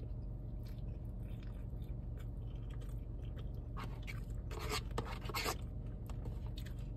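Quiet chewing of a mouthful of loaded fries, then a metal fork scraping and poking through fries in a cardboard takeout box, with a few short rasping scrapes a little past halfway. A steady low hum sits underneath.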